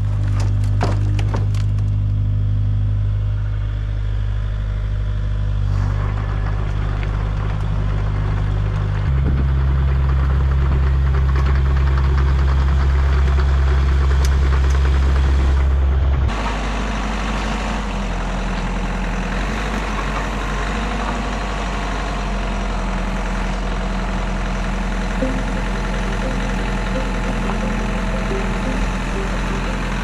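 Kubota KX057 mini excavator's diesel engine running steadily, with sawn pine slabs cracking and clattering in its grapple near the start. The engine note changes about nine seconds in, then drops and quietens about sixteen seconds in.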